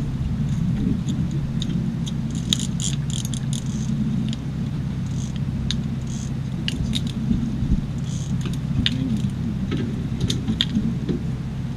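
Scattered sharp clicks and rattles of fishing tackle, with reels being cranked and gear handled, over a steady low rumble. The clicks cluster from about two seconds in.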